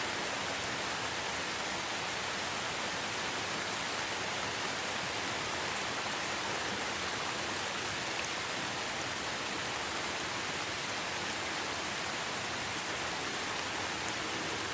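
Steady rain falling in a rainforest, a continuous even hiss.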